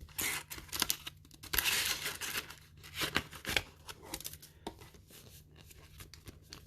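Booster-pack wrappers and paper envelopes being handled, with irregular crinkling, rustling and clicks and a longer tearing rustle about a second and a half in.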